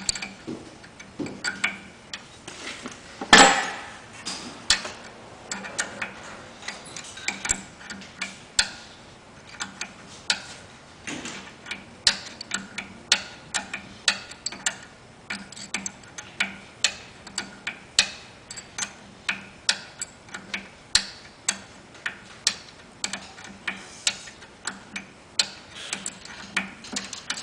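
Ratchet wrench clicking at about two clicks a second as pump fittings are loosened, with one louder metal clunk about three seconds in.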